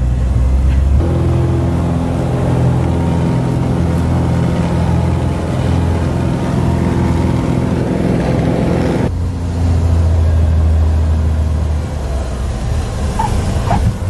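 Piston engine and propeller of a single-engine light aircraft droning steadily, heard inside the cabin. The sound changes abruptly about a second in and again about nine seconds in.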